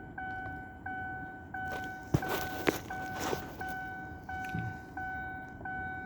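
2015 Chevrolet Camaro's dashboard warning chime repeating, a short ding about every 0.7 seconds, while the ignition is on. Two sharp clicks sound a little past the middle.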